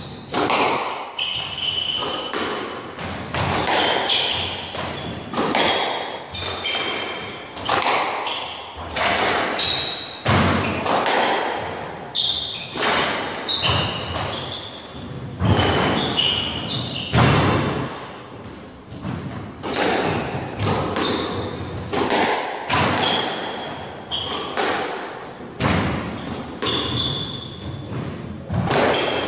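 Squash rally: repeated sharp hits of the ball off rackets and the court walls, echoing in the enclosed court, mixed with short squeaks of the players' shoes on the wooden floor.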